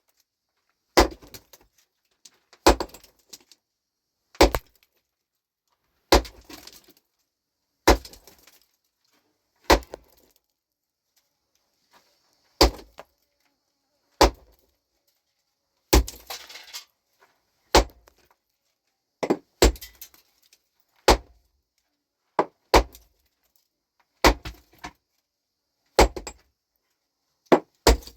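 Rock being broken with heavy blows, struck at a steady pace of roughly one blow every second and a half to two seconds. Each strike is followed by a brief rattle of falling chips and stones.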